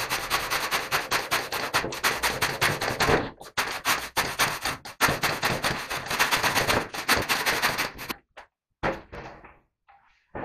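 Handsaw cutting through a roll of fiberglass wall-covering, in quick back-and-forth strokes with two brief pauses. The sawing stops about two seconds before the end.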